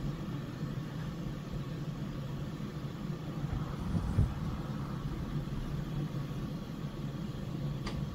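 Steady low motor hum from a household appliance, with one soft knock about four seconds in.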